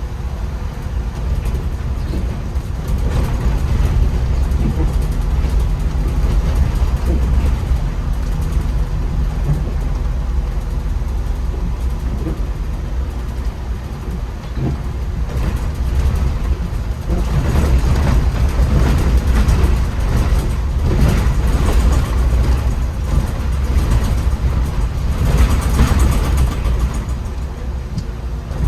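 MAN Lion's City articulated city bus driving on wet roads, heard from the driver's position: a steady low engine and road rumble with a hiss of tyres over the wet surface. The hiss and rumble grow louder about halfway through and again near the end.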